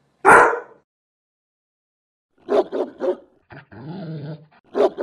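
A Doberman's single loud bark, then about two seconds of silence. A German Shepherd then barks three times in quick succession, makes a lower drawn-out sound for about a second, and barks once more near the end.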